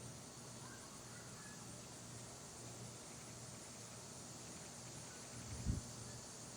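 Quiet backyard ambience: a steady high hiss, a few faint short chirps about a second in, and a brief low thump near the end.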